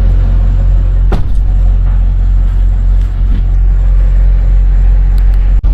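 Semi truck's diesel engine running with a steady low rumble, heard from the cab, with a sharp click about a second in.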